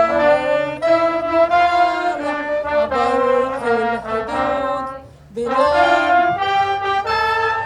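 Brass instruments playing a melody in changing notes, breaking off briefly about five seconds in before carrying on.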